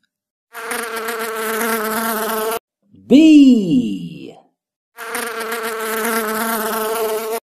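Bee buzzing: a steady hum with a slight waver, heard twice, about two seconds each, cutting off abruptly.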